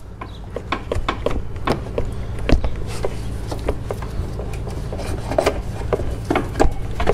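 Scattered clicks, knocks and rubbing as a screwdriver pries up the plastic retaining clip on an AC condenser and the condenser is worked loose from its mounts, over a steady low hum.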